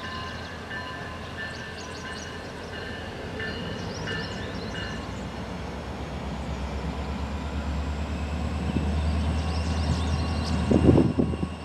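BNSF GP25X and GP40M diesel-electric locomotives approaching slowly, their engines' low drone growing steadily louder. A few heavy wheel knocks over the rail joints come near the end as the lead unit draws close.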